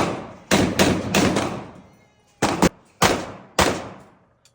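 A string of gunshots at a shooting range, about seven shots in quick pairs and threes, each shot followed by a long echoing decay.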